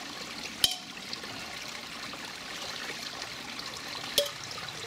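Small stream trickling steadily over rocks, with two sharp metallic clinks from a stainless steel camping pot and its wire handle, one about half a second in and one near the end.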